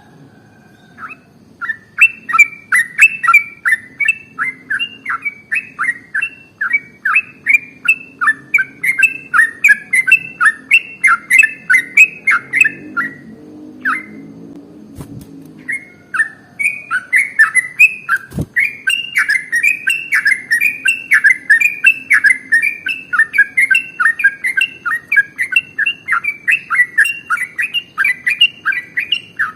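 Yellow-vented bulbul (trucukan) singing its long, rapid 'ropel' song: a fast run of loud, repeated chattering notes, several a second. The bird breaks off for a few seconds near the middle, then resumes.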